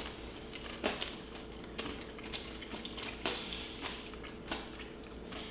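People biting into and chewing a thick, dense hemp protein bar. Scattered small sharp clicks and crunches come from the crunchy bits, over a steady low hum.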